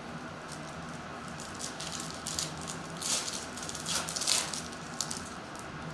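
Foil wrapper of a Topps trading card pack crinkling and crackling as it is torn open by hand, in a run of crackles starting about a second and a half in, loudest around three and four seconds in.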